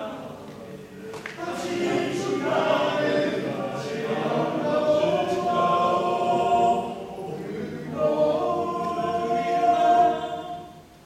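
Men's choir singing unaccompanied in long held phrases that swell and ease. The phrase dies away just before the end.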